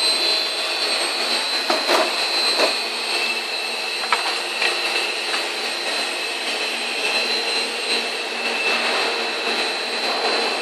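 Extrusion blow moulding machine running: a steady mechanical din with high steady tones, and a few short sharp knocks about two seconds in and again near four seconds.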